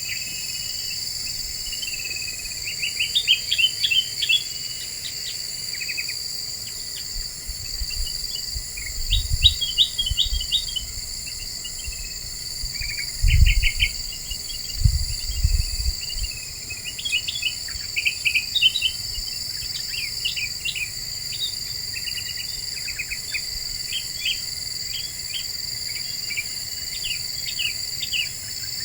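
Kutilang emas bulbul singing in quick bursts of sharp chattering notes, repeated in clusters, over a steady high drone of crickets or other insects. There are a few low thumps near the middle.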